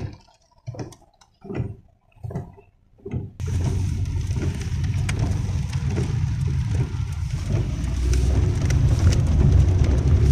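Road noise inside a moving car on a wet road: a steady low rumble from the engine and tyres, with an even hiss of rain and tyre spray. It starts suddenly about three seconds in, after a few short, separate sounds.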